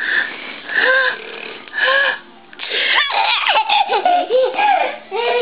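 Baby laughing hard in repeated short bursts of giggles and high squeals, about one burst a second, becoming a quicker run of squealing laughs in the second half.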